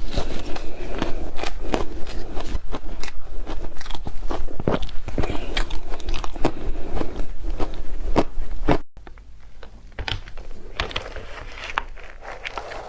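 Close-miked crunching as a person bites and chews yellow powdery frozen ice, a dense run of crackling crunches. About nine seconds in, the level drops suddenly and the crunching goes on more quietly and sparsely.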